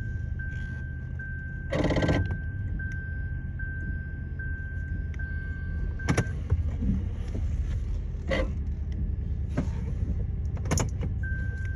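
Lexus RX450h ABS brake noise: a loud half-second buzzing groan about two seconds in, then sharp clicks or knocks three times later, over a steady low hum. The owner traced it to a faulty ABS pump and actuator.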